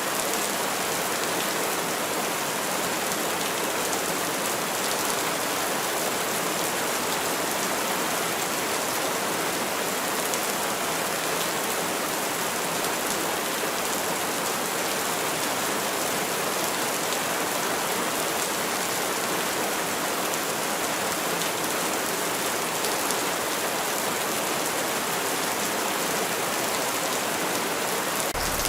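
Steady rain: a dense, even hiss of falling drops, weighted to the high end with little low rumble. Just before the end a deeper, fuller layer comes in underneath.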